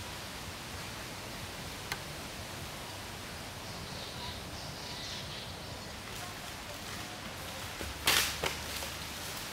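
Forest ambience: a steady quiet hiss, broken about eight seconds in by two short, loud rustling swishes.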